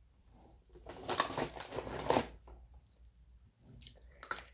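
Crunching and cracking as teeth bite into a hard rice murukku, a ring-shaped fried rice snack, loudest from about one to two seconds in, with a few sharp cracks near the end.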